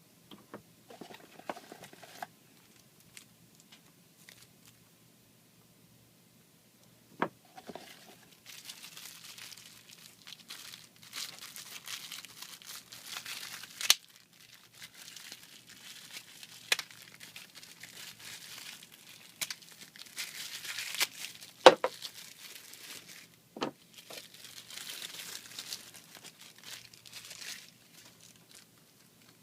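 Plastic packaging crinkling and rustling in spells as it is handled, with several sharp clicks and knocks between them.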